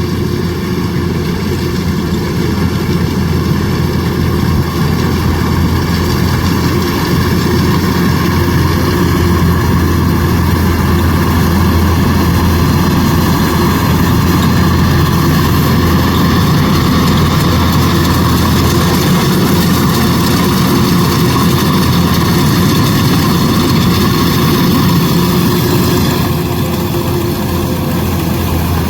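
Kubota DC105X combine harvester's diesel engine and threshing machinery running steadily under load, easing off slightly near the end.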